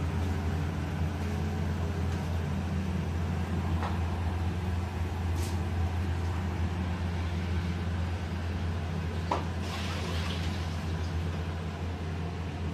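Steady low droning hum of kitchen machinery, with a few light clicks and knocks about four, five and a half, and nine seconds in.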